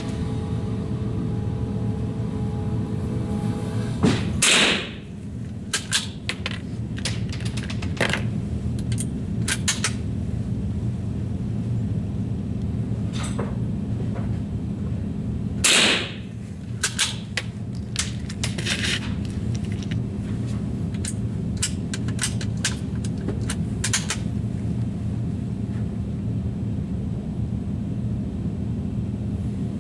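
Two rifle shots about eleven seconds apart, each with a short ringing tail, with many fainter sharp cracks and clicks between them over a steady low hum.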